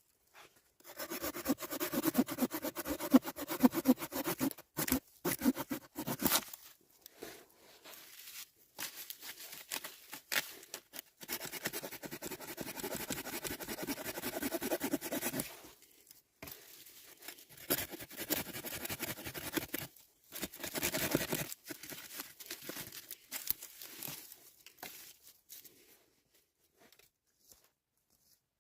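Irregular bursts of crunching and scraping handling noise, separated by short pauses and dying away near the end.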